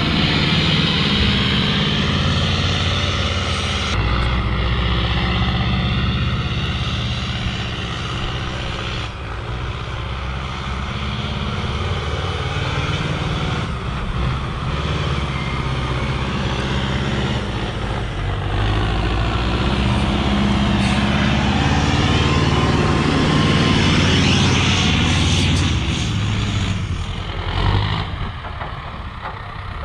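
Hydrema 912 articulated dump truck's diesel engine running under load as it drives through snow, its note rising and falling with the throttle.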